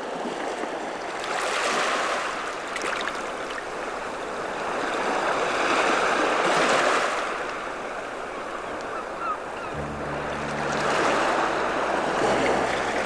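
A rushing noise like surf or wind on a film soundtrack, swelling and fading about every four to five seconds. About ten seconds in, a low, steady musical drone comes in beneath it.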